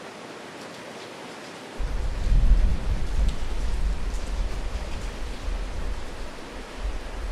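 Steady hiss; about two seconds in a deep rumble starts suddenly, is loudest just after, and rolls on unevenly: a sound-design rumble under a logo.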